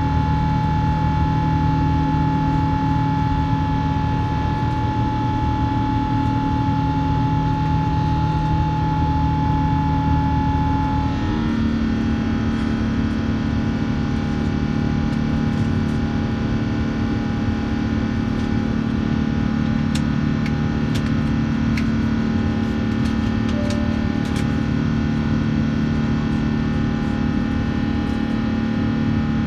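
Jet airliner's engines heard inside the cabin during the climb after takeoff: a steady rushing noise with a few droning tones. About eleven seconds in, the engine tones shift in pitch at once. A few faint clicks come later on.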